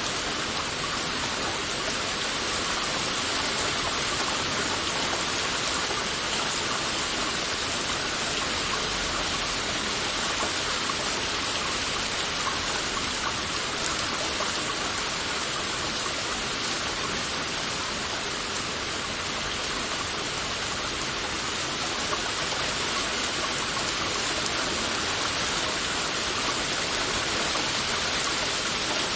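Heavy rain falling steadily, an even dense hiss of many drops with fine patter and no break in intensity.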